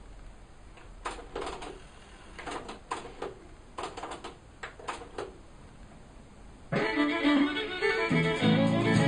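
Folk music with fiddle playing through the speakers of a Panasonic RX-EX1 portable stereo, a cassette recording made from a CD being played back. It is quiet and sparse at first, then about two-thirds of the way in it becomes much louder and fuller, with low notes coming in near the end.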